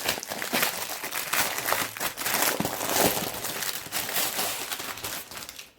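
Packaging crinkling and rustling in an irregular, continuous crackle as it is pulled open by hand to unwrap a diamond painting kit; it dies away just before the end.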